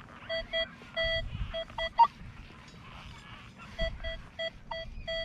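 Nokta Makro Legend metal detector giving repeated short mid-pitched beeps in quick bursts as the coil sweeps back and forth over a buried target, with one brief higher beep about two seconds in.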